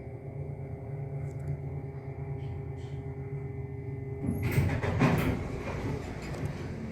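Dover hydraulic elevator's pump motor humming steadily. About four seconds in the hum stops and the elevator doors slide with a loud rattling rumble.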